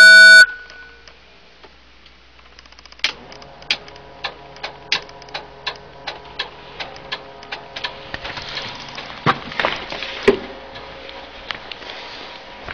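A loud half-second beep as the light bar is switched on, then from about three seconds in a steady electrical hum from the Federal Signal StreetHawk light bar's rotators, with its flasher relays clicking about twice a second.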